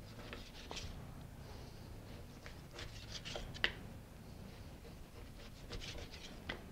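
Chef's knife cutting a rack of lamb into chops on a cutting board: faint, scattered clicks and taps of the blade and the meat being handled, with one sharper click about three and a half seconds in.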